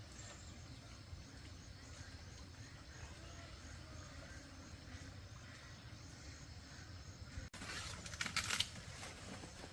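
Quiet outdoor background with faint high chirps repeating at an even pace. After a sudden cut near the end, louder rustling and knocking come in.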